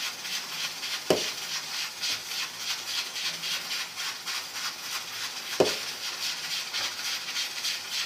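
Large pot of salted water at a rolling boil, bubbling with a steady fast-pulsing hiss, while soaked rice is added to it. Two sharp clinks ring out, one about a second in and one near six seconds.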